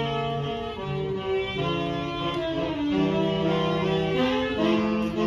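Instrumental music: held notes in several parts moving together in slow chords.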